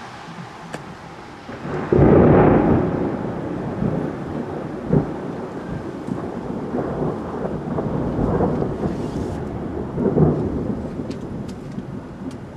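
Thunder: a loud clap about two seconds in that rolls on as a long low rumble, swelling again several times, with another loud peak about ten seconds in.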